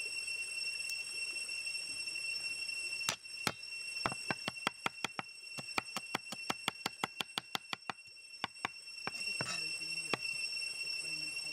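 A cleaver chops garlic cloves on a wooden chopping block: a fast, even run of sharp knocks, about five a second. It starts about three seconds in and stops a few seconds before the end.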